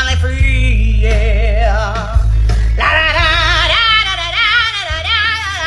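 Background music: a song with a singer holding long notes with strong vibrato over a steady bass line.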